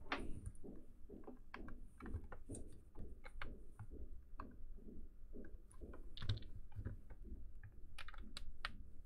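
Irregular light clicks and crackles from handling an e-reader: protective plastic film being peeled off its screen and a micro-USB charging cable being plugged into it, with a few sharper clicks near the end.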